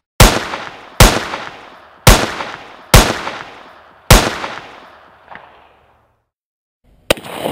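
Five single gunshots about a second apart, each with a long fading echo, followed near the end by another sharp crack.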